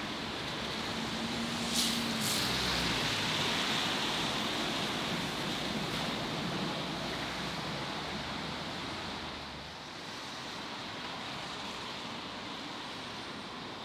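Steady rushing background noise, with two sharp clicks about two seconds in; it eases slightly near ten seconds.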